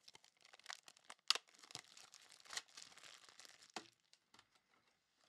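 Faint crinkling and rustling of clear plastic wrapping and card sleeves being handled, with a few sharp crackles. It stops about four seconds in.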